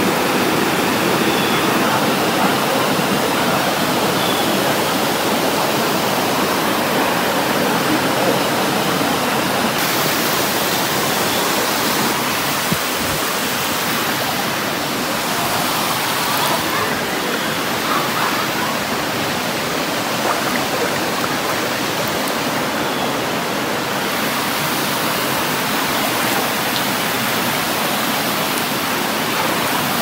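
A rocky stream spilling over a small waterfall cascade and around boulders, a steady, even rush of water.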